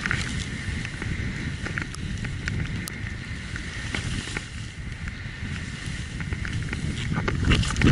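Wind buffeting a body-worn camera's microphone in a mountain blizzard, a rough steady rumble with small clicks and rustles of clothing and gear. It swells into louder gusts right at the start and again near the end.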